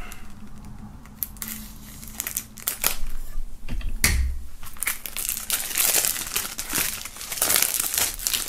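Plastic shrink-wrap film on a CD jewel case being slit with a knife and then torn and peeled off. A few short scratches and clicks come first, then a dense run of crinkling from about halfway that grows loudest near the end.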